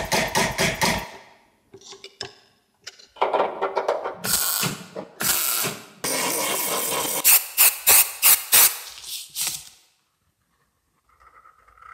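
A mallet tapping a sheet-metal strip held in a vise, several evenly spaced blows, then a MIG welder crackling against a car body panel, steady for about a second and then in a run of short bursts.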